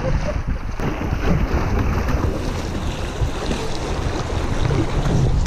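Wind noise on the microphone over river water rushing past a kayak, with the splash of double-bladed paddle strokes.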